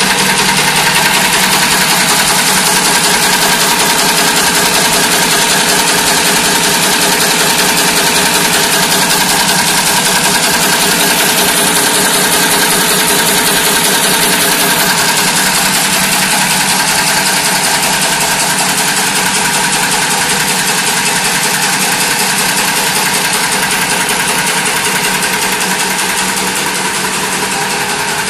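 Automatic jewelry chain-making and welding machine running, a loud, steady, rapid mechanical clatter. It grows a little fainter near the end.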